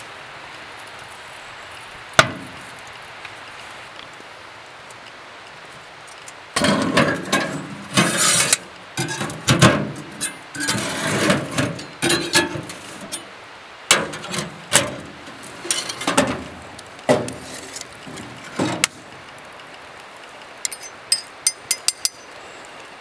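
Irregular knocks, clatter and handling noise from hands-on food preparation. There is a single sharp knock about two seconds in, a long stretch of uneven knocks and scraping, and a quick run of light clicks near the end.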